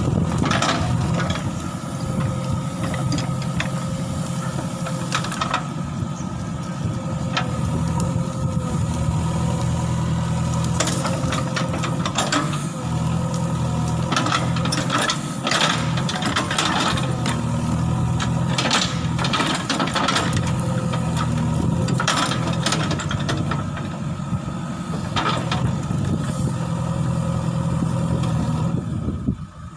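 JCB backhoe loader's diesel engine running steadily under work, with irregular knocks and rattles through it. The sound drops away suddenly near the end.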